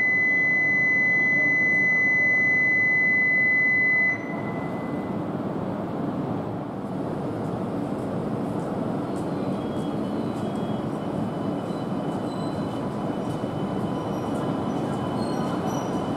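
A steady high electronic tone sounds for about four seconds and stops, leaving the running rumble of a Shinkansen train moving at the platform, with a faint thin whine joining it later.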